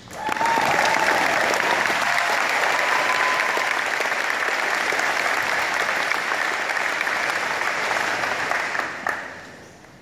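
Large audience applauding in a gym, starting all at once and dying away about nine seconds in.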